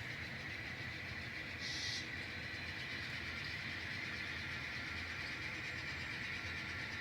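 N scale model locomotive running along the track with its cars, a steady hum and whine. A brief hiss comes about two seconds in.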